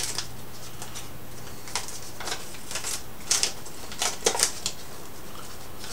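Flashlight packaging being handled: a scattering of short paper and plastic rustles and crinkles, mostly between about two and four and a half seconds in, as a folded instruction leaflet is taken out and opened.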